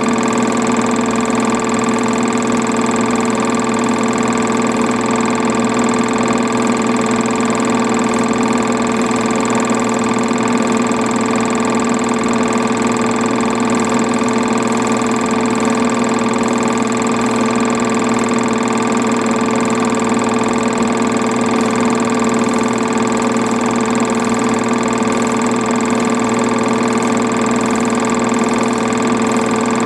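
A film projector running with a steady, unchanging mechanical hum.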